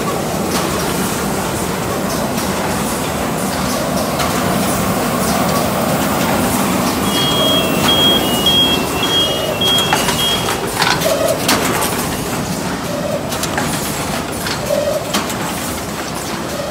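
HM-ZD350D automatic rigid box making machine line running: a steady mechanical din with frequent clicks and knocks from its moving parts. About seven seconds in, a high two-tone beeping pulses evenly for roughly three seconds, and a few short low tones sound near the end.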